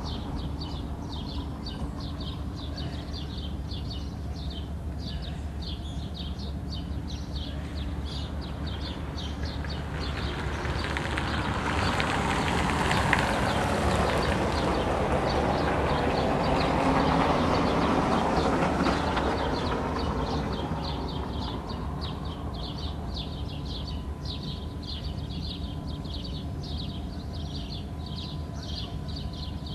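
Harbour ambience: a steady low drone under small birds chirping over and over. About a third of the way in, a loud passing rumble swells up, peaks, and fades away again about two-thirds through.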